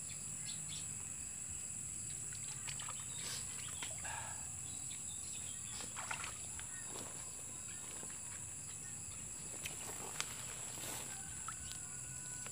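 Steady high-pitched chorus of night insects, with a few faint clicks scattered through it.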